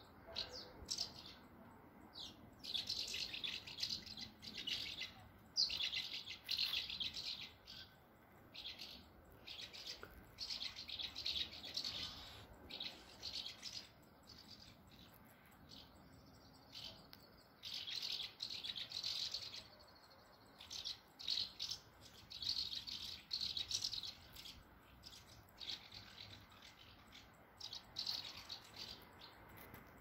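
A flock of swallows twittering: bursts of rapid, rattling chirps come every second or two, with a lull about halfway through.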